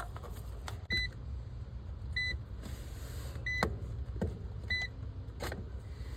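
Digital multimeter beeping four times, short high beeps a little over a second apart, amid small clicks and knocks of handling the meter leads and capacitor wiring, over a steady low rumble.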